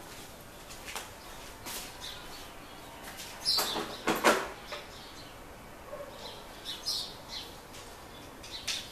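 Scattered small clicks and a louder scraping rustle about halfway through as the new heatsink and fan assembly is handled and taken off the open laptop, with birds chirping faintly in the background.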